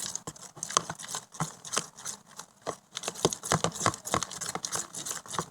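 Homemade slime being worked and stretched by hand, giving fast irregular sticky clicks and crackles; the slime has gone clumpy.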